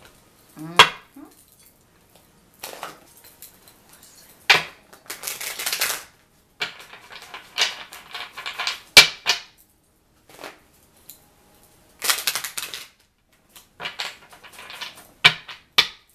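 A deck of tarot cards being shuffled by hand: repeated short bursts of cards sliding and riffling against each other, with sharp snaps now and then.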